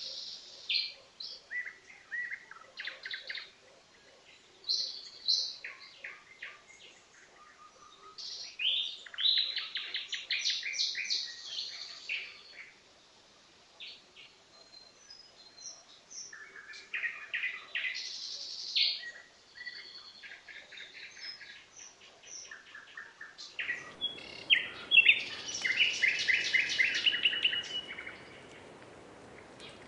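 Nightingale singing: varied phrases of whistles, trills and fast runs of repeated notes, with short pauses between them. About three-quarters through, a steady background hiss comes in under the loudest run of rapid repeated notes.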